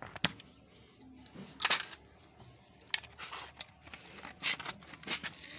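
A plastic soft-drink bottle being handled: a few short hissing rustles with sharp clicks in between.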